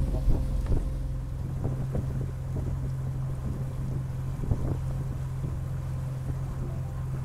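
Outboard motor of a small open boat running with a steady low hum under way, with wind buffeting the microphone.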